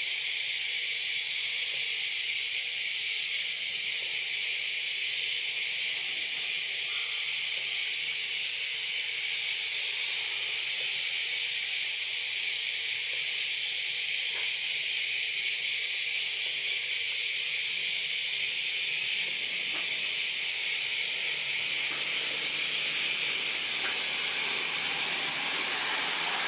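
A steady, even high-pitched hiss with no breaks. In the last few seconds a faint low rumble rises beneath it.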